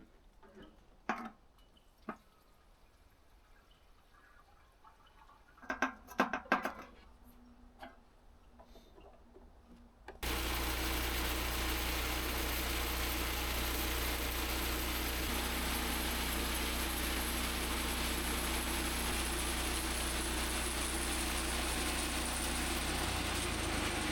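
A few faint knocks and clatters, then about ten seconds in the Mech Maxx band sawmill's gasoline engine cuts in suddenly. It runs loud and steady, with a low hum under a rushing noise.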